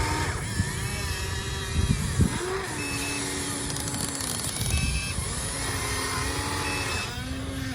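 Radio-controlled model excavator at work: electric motors and hydraulic pump whining, their pitch sliding up and down and levelling off as the controls are moved, with a few sharp knocks about two seconds in.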